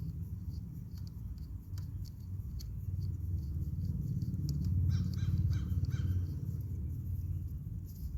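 A crow cawing four or five times in quick succession about five seconds in, over a steady low rumble.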